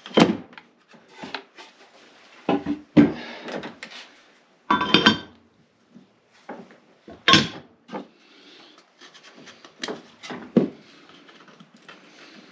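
Irregular knocks and clatters of plywood and metal pieces being moved and set down, two of them with a brief metallic ring.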